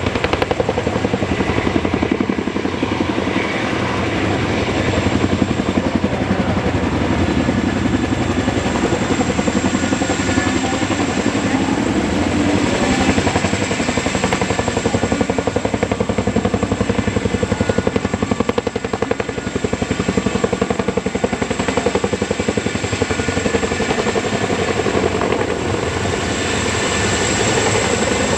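Boeing CH-47 Chinook tandem-rotor helicopter flying low and close, its rotor blades beating in a rapid, steady chop with a thin high whine over it.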